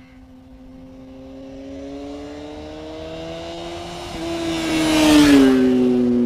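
Motorcycle approaching along the road and riding past: its engine note grows steadily louder, peaks about five seconds in, and drops in pitch as it goes by.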